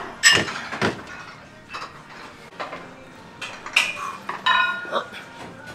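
Metal gym weights clanking and clinking, with a couple of sharp knocks early on and a cluster of strikes a few seconds in, some leaving a short metallic ring.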